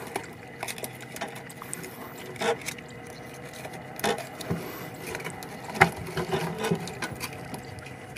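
Scattered metallic clicks and clinks of pliers working a frog lure's hooks free from a snakehead's mouth, the sharpest click about six seconds in.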